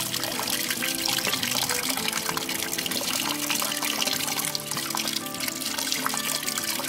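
A steady stream of water splashing over fingers and into a half-filled plastic bucket as a clogged washer-pump filter is rinsed clean under it, with background music playing over it.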